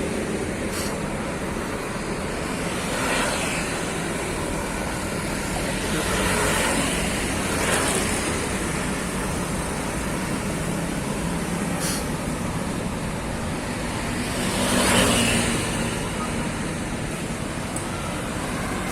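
Road traffic: a steady rumble of engines and tyres, with vehicles swelling past several times, the loudest about fifteen seconds in. No horn sounds.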